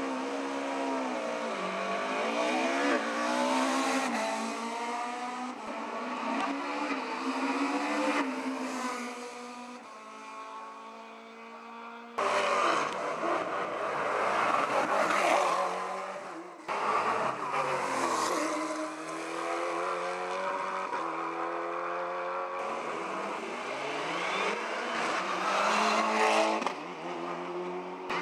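Competition car engines accelerating hard at full throttle, pitch climbing and dropping back at each upshift, one car after another. The sound changes abruptly a few times as a new car takes over.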